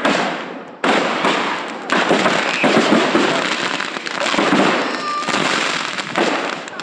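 A mass of fireworks going off at ground level in a fireworks accident: dense, rapid crackling and popping of firecrackers and shells. Fresh volleys start about one and two seconds in, and a short whistle sounds about five seconds in.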